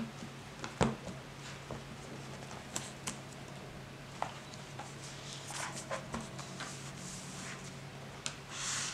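A paper notebook handled on a wooden table: scattered taps and knocks as it is moved, the loudest about a second in, paper rustling partway through, and a swish of the cover and pages opening near the end, over a steady low hum.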